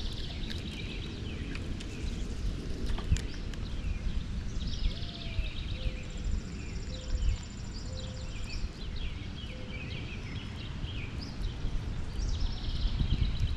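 Wind buffeting the microphone as a steady low rumble, with birds chirping on and off. A thin high trill runs through the middle.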